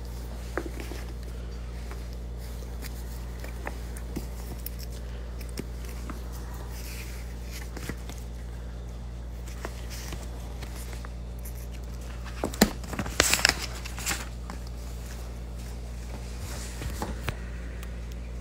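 Books and paper being handled: a few faint clicks, then a short burst of rustling and knocks about twelve seconds in, and a few more knocks near the end. A steady low electrical hum runs underneath.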